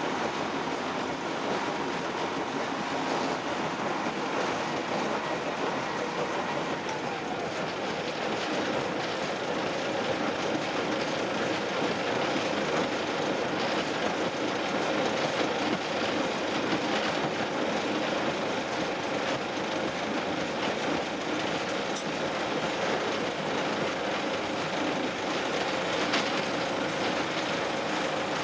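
Narrow-gauge diesel locomotive DC121 running steadily, heard from inside its cab: engine drone mixed with the wheels rolling on the rails.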